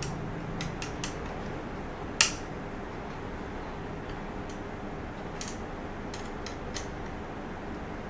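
Small metallic clicks and ticks from a road-bike brake lever being handled and adjusted on a drop handlebar, with one sharp, louder click about two seconds in, over a steady background noise.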